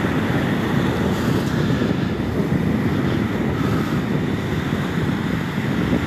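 Wind noise on the microphone, a steady low rumble, with small waves washing onto the shore behind it.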